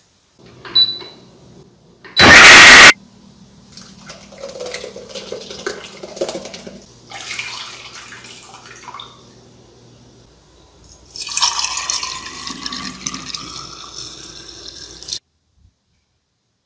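Kitchen preparation sounds in quick succession: a sharp click, a very loud noisy burst lasting under a second, then softer scraping and rustling. From about eleven seconds in, liquid splashing and trickling as coconut milk is wrung from a cloth into a stainless-steel bowl, cutting off suddenly.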